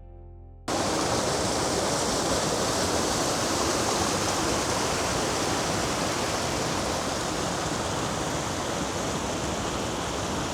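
Steady rush of creek water and a small waterfall, cutting in suddenly under a second in as guitar music fades out.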